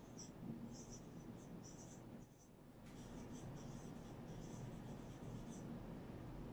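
Felt-tip marker writing on a whiteboard: faint, short squeaky strokes as letters are drawn, with a pause of about half a second a little past two seconds in.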